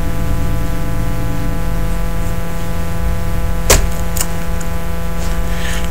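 Steady, loud electrical hum and buzz in the recording, with a sharp click a little past halfway and a fainter click soon after.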